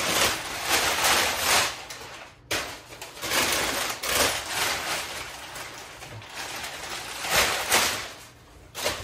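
Rustling of packing material and handling of parts inside a cardboard shipping box, coming in irregular swells of noise.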